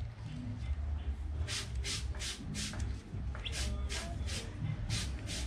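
Small knife shaving and trimming the inside of a rubber ring cut from a slide sandal: quick scraping strokes, about four a second, in two runs, one about a second and a half in and another near the end, over a steady low rumble.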